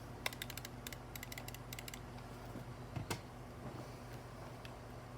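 Keyboard with its keycaps removed, the bare key switches mashed in three quick bursts of clicks, then a single louder knock about three seconds in and a few scattered clicks.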